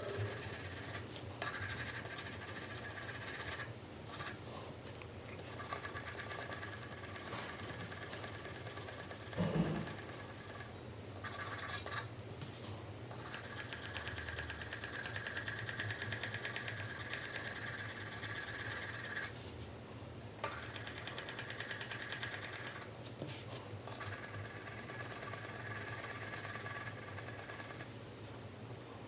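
4B pencil shading on paper: rapid back-and-forth strokes that scratch in long stretches with short pauses between them. A soft knock comes about nine and a half seconds in.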